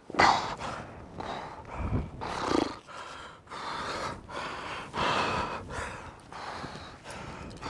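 A rock climber breathing hard, with forceful exhalations and gasps about once a second, the loudest right at the start: the strain of pulling through a hard, finger-straining climb.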